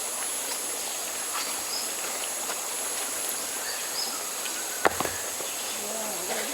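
Steady high-pitched drone of an insect chorus, with a few short high chirps over it. A single sharp knock sounds about five seconds in.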